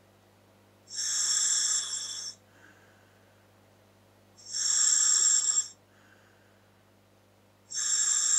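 Breathing through a scuba regulator's demand valve fitted to a Dräger full-face mask: three loud hisses of air, about three and a half seconds apart, each followed by a short, fainter breath sound.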